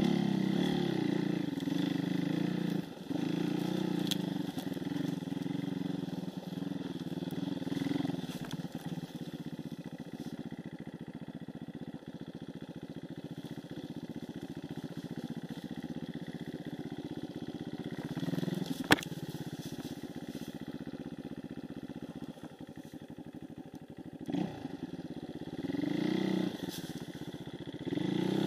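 Enduro dirt bike engine running under changing throttle, revving up in surges and dropping back between them. A single sharp knock stands out about two-thirds of the way through.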